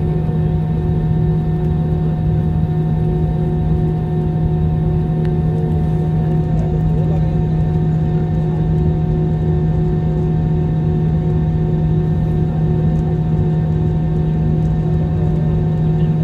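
Airliner engines running, heard from inside the passenger cabin as a loud, steady hum over a constant rushing noise, with no change in pitch or level.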